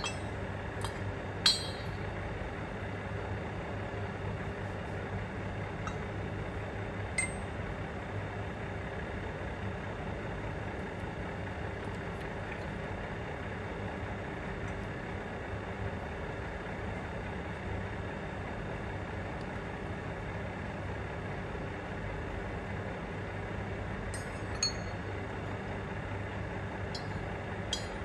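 A few sharp metallic clinks, the loudest about a second and a half in and more near the end, as a steel bracket and clamping parts are handled on a milling machine's angle plate, over a steady hum of workshop machinery.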